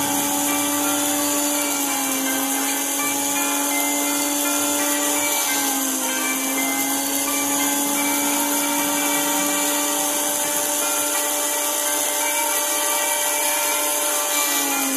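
Small rotary-tool handpiece running with a steady whine as its burr grinds a piece of quartz, the pitch dipping briefly about two seconds in and again around five and a half seconds.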